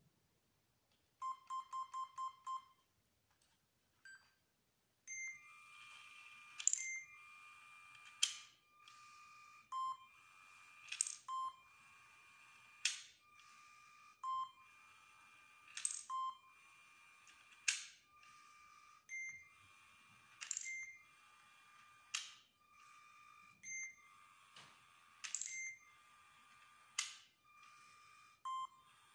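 A LEGO Spike Prime hub gives five short, quick beeps. Then its motors run in repeated spurts as the robot drives and lays out small 3D-printed plastic tiles, with short beeps between spurts and a sharp clack about every one and a half to three seconds from the tile-dropping mechanism.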